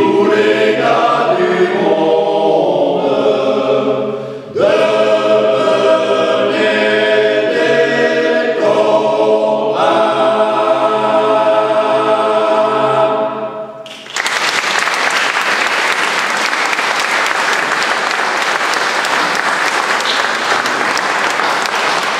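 Men's choir singing a cappella: a last phrase, a short breath about four seconds in, then a long held final chord that is cut off about thirteen seconds in. The audience then breaks into steady applause.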